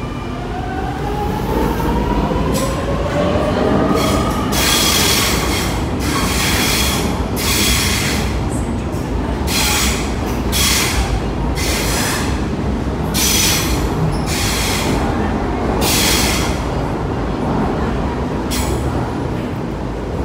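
Sydney Trains double-deck electric train pulling out of an underground platform. Its motors whine, rising in pitch as it picks up speed, then the passing wheels hiss and squeal in loud bursts about a second apart as car after car goes by.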